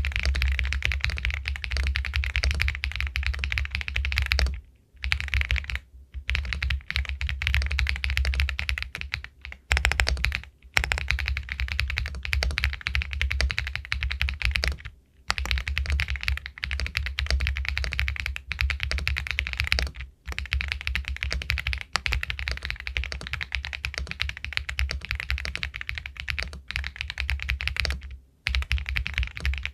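Continuous fast typing on an Epomaker Galaxy 80 Pro full-aluminium mechanical keyboard with White Jade linear switches: a rapid stream of key clacks, broken by a few brief pauses.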